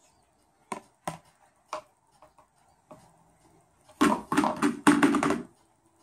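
A cockatoo's beak knocks a hard plastic frisbee a few times, three sharp clicks in the first two seconds. About four seconds in, the frisbee clatters down onto a tile floor in a quick run of knocks that stops after about a second and a half.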